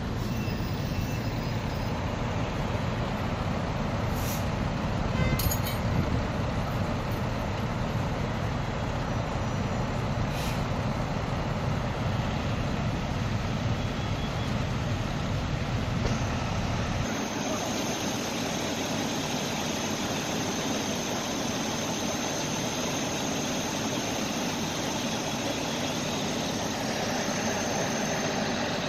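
Steady low rumble of idling fire-truck engines. About two-thirds through, the rumble drops away, leaving a steady hiss with a thin high whine.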